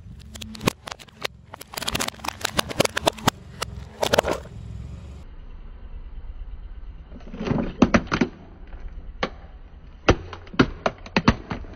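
Hard plastic toy car cracking and snapping under a car tyre, in clusters of sharp cracks with short pauses between, over a low steady hum from the car's engine.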